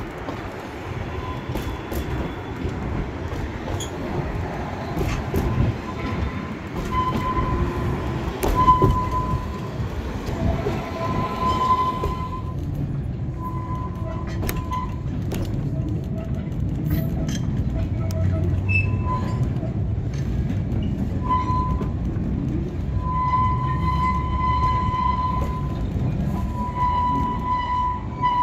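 Narrow-gauge train heard from a riding carriage: wheels rumbling and clicking over the rail joints, with an on-and-off high-pitched wheel squeal that comes longer and more often near the end as the train rounds a curve.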